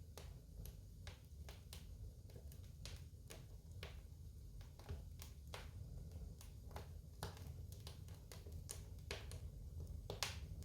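Wood fire in a fireplace crackling: irregular sharp pops and snaps, a few a second, over a steady low rumble, with the loudest snap near the end.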